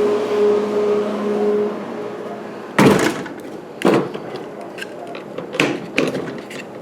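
Old Pepsi cooler running with a steady hum that stops about two seconds in, followed by four sharp knocks, the first the loudest.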